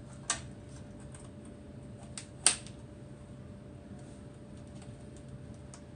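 Sharp clicks and light taps from monitor parts being handled and fitted back together: a click near the start and a louder one about two and a half seconds in, with faint ticks between.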